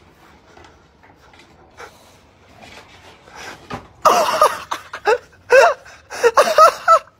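A person laughing in several loud bursts with wavering pitch, starting about four seconds in. Before that there are only faint scuffs and knocks.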